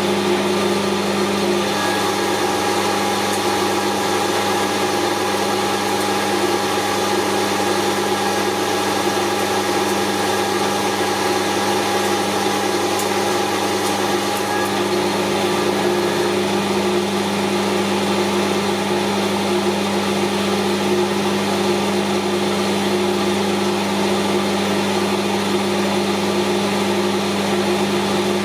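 Metal lathe running steadily, turning down the outside diameter of a round-stock puller plate. A thin steady whine sits over the machine's hum from about two seconds in until about halfway, then drops away.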